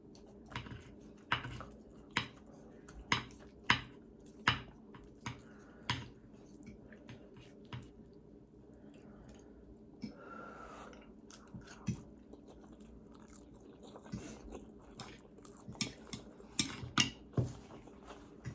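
Close-miked chewing of soft black bean noodles, with many short wet mouth clicks in runs. The clicks ease off in the middle and pick up again near the end.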